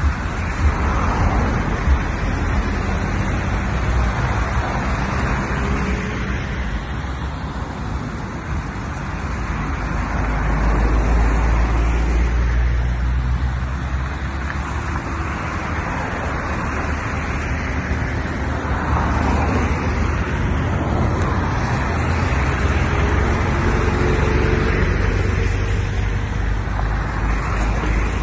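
Cars driving slowly past through shallow floodwater on the road, their tyres swishing through the water over a low engine and road rumble. The sound swells several times as each vehicle goes by.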